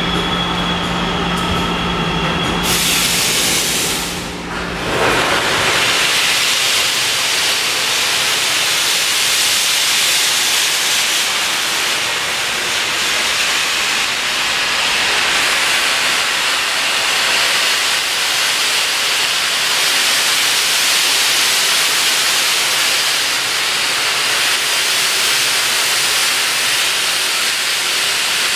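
Norfolk & Western J-class 611 steam locomotive easing forward with steam venting around its cylinders: a loud, steady hiss that starts about three seconds in, dips for a moment, then runs on unbroken. Before the hiss, a steady hum with a few high steady tones.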